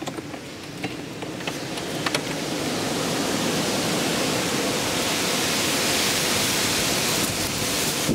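Hurricane rain and wind, a steady rushing hiss that swells over the first three seconds and then holds. A few drops tap sharply in the first two seconds.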